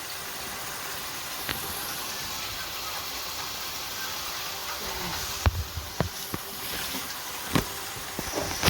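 Food sautéing in a pot, a steady sizzle, with a few sharp knocks against the pot.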